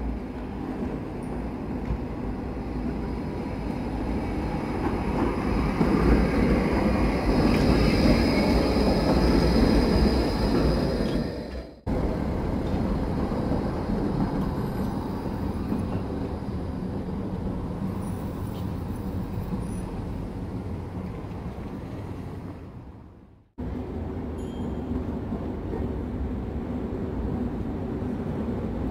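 Trams running over cobbled street track: rumbling wheels and running gear. The sound swells as a tram passes close, loudest about six to eleven seconds in, with a thin high whine or squeal above the rumble. The sound breaks off abruptly twice.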